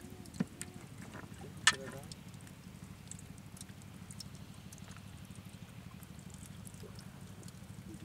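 Two sharp knocks on a wooden boat as a cast net is gathered, the second and louder about a second and a half in, over a steady low hum.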